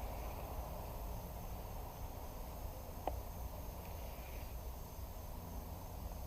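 Steady outdoor ambience: a constant high drone of insects such as crickets over a low steady rumble, with one sharp click about three seconds in.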